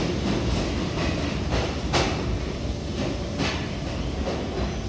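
New York City subway 1 train of R62A cars pulling out of the station: a low rumble of wheels on rail with irregular sharp clicks as the wheels cross rail joints. The sound gradually fades as the last car leaves.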